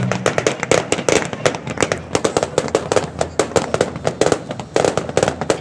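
Fireworks going off in a rapid, dense series of sharp bangs and crackles, several a second.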